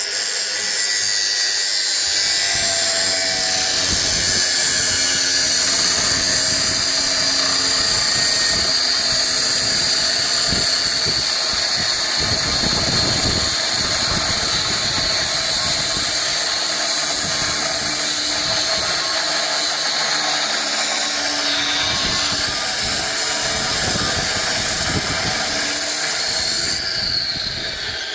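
Angle grinder cutting through steel: a loud, steady high whine with harsh grinding, its motor winding down near the end.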